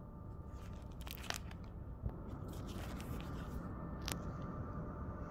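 A clear plastic sheet protector holding a paper datasheet rustling and crinkling as a hand handles and flattens it, with a couple of sharper crackles, over a steady low hum.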